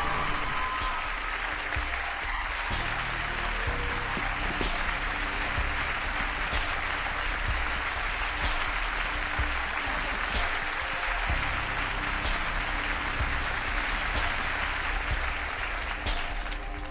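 Many people applauding steadily, with music playing underneath.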